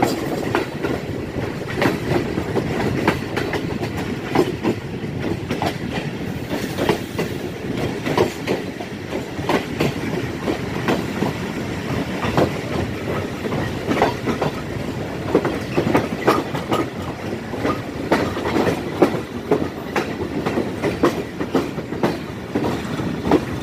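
Passenger train running on the track, heard from on board: a steady rumble with many irregular clacks of the wheels over rail joints.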